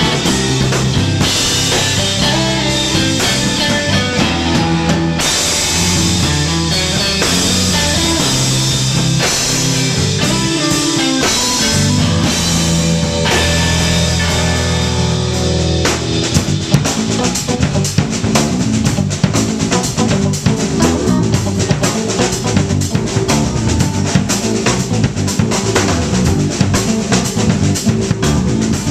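Live instrumental rock trio of electric guitar, electric bass and drum kit playing together. About sixteen seconds in, the held guitar notes drop away and fast, busy drumming takes over with the bass still underneath.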